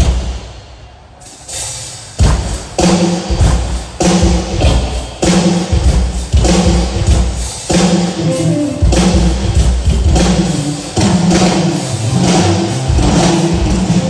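Live band rehearsing through a concert PA during a sound check: drums and bass. A loud hit at the start rings away, and the band comes in with a steady drum beat about two seconds in.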